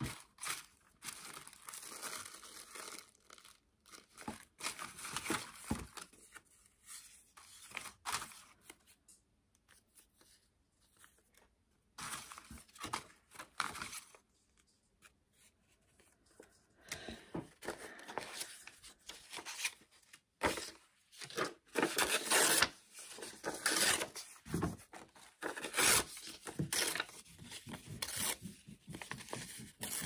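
Paper being torn by hand and rustled, in irregular bursts with a few short pauses, the bursts coming thicker in the second half.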